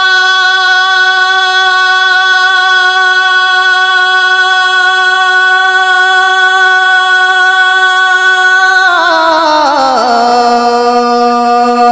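A voice singing a manqabat (devotional praise song), holding one long steady note for about nine seconds, then sliding down to a lower note and holding it near the end.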